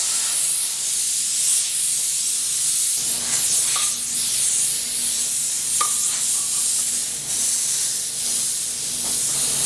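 Light 'N' Easy steam cleaner jetting steam in a steady hiss, with a few brief squeaks.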